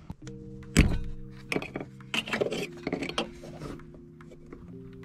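Soft background music with sustained chords, over sharp clicks and knocks of hands working the plastic connectors and wiring harness on the fuel pump assembly, the loudest a single knock near the start.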